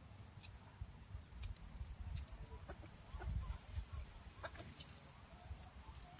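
Wild junglefowl clucking softly, a few short calls in the middle and a short held call near the end, with scattered short high ticks over a low rumble.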